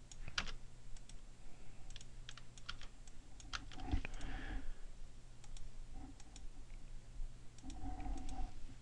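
Scattered computer keyboard key presses and mouse clicks, over a faint steady hum.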